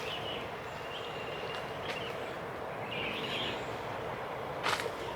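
Steady outdoor background noise with a few short, high bird chirps, and a couple of sharp clicks near the end.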